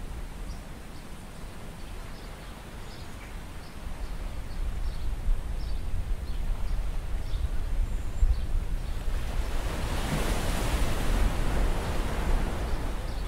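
Seashore ambience on a rocky shore: the wash of surf with wind noise on the microphone, the hiss swelling louder about two-thirds of the way in. Faint high chirps come every so often.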